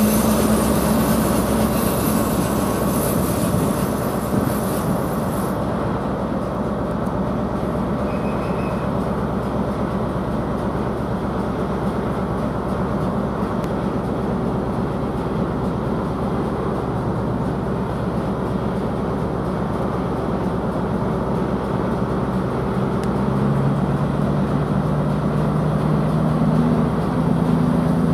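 Diesel trains at a station platform: the steady running of an HST power car's diesel engine, with a CrossCountry Class 221 Voyager diesel unit approaching on the near track. About three-quarters of the way through, the Voyager's engine note grows louder as it draws close.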